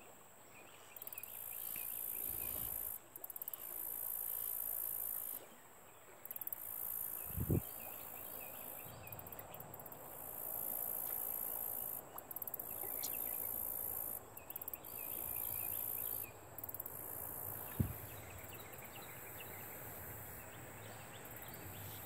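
Insects shrilling high in stretches of a few seconds that start and stop abruptly, over a faint outdoor hiss. A few low thumps on the microphone, the loudest about a third of the way in and again near the end.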